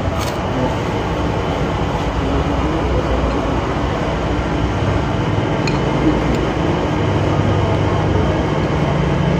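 Steady, loud rumble of a nearby heavy engine running, with a low drone that shifts slightly in pitch a few times.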